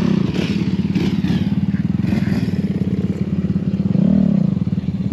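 A nearby off-road vehicle's engine idling, with two short throttle blips where the pitch rises and falls back: one right at the start and one about four seconds in.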